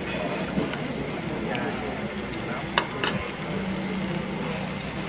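Slices of young beef sizzling on a tabletop grill plate, with background chatter; two sharp clicks about three seconds in.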